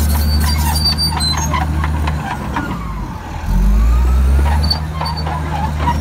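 Komatsu D65PX crawler bulldozer's diesel engine running, with clanking from its steel tracks. About two seconds in, the engine note drops and a whine glides down and back up. Then comes a louder low rumble for about a second before the steady run returns.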